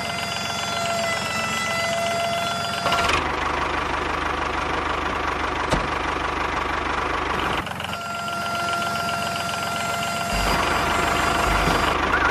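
Small electric gear motor of a homemade toy tractor and tipping trolley running, a steady whine that changes to a louder, coarser buzzing rattle about three seconds in and again near ten seconds, as the trolley tips its load and lowers.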